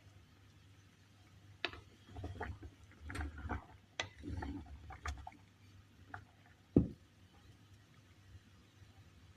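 Kitchen handling noise: a run of clicks and knocks, as of a pot, lid or utensils being moved, then one sharper, heavier knock near the end.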